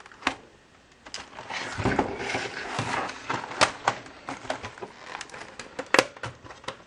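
An Acer laptop's plastic case being handled and pried apart: a scraping rustle as the laptop is turned over on the bench, then a series of sharp plastic clicks and snaps as the case's clips are worked loose.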